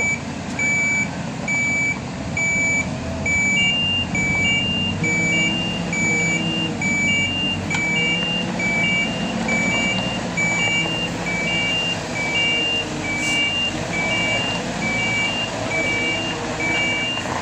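Reversing alarms on heavy trucks beeping steadily about twice a second, with a second alarm at a slightly different pitch joining a few seconds in, over a diesel truck engine running.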